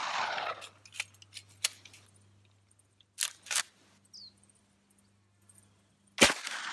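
A MAS-38 submachine gun in 7.65mm French Long fires a single shot about six seconds in, loud and echoing. Before that, the echo of the previous shot dies away, and a few light metallic clicks and then two sharper clacks about three seconds in come from the gun being handled. The gun is going off one round at a time instead of running: the short handloaded cartridges keep failing to feed and cycle, which the shooter suspects is due to their being under length.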